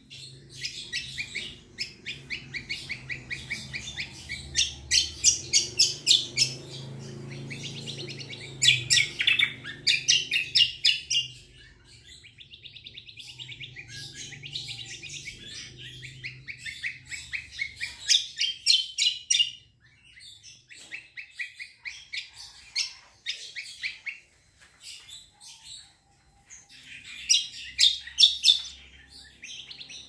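Caged kecial kombo (cucak kombo) songbird singing in long runs of rapid, rattling trilled notes, breaking off briefly a few times between runs.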